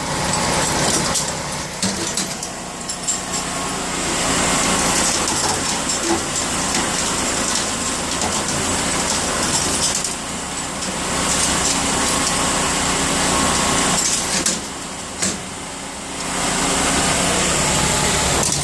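Ameri Shred AMS 300 hard drive shredder running, its motor humming steadily while the cutters grind and crunch through hard drives. The grinding comes in dense stretches that ease off briefly a few times.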